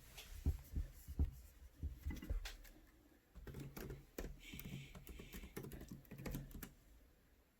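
Computer keyboard keys being typed in irregular clicks, several a second, while a password is entered to log in.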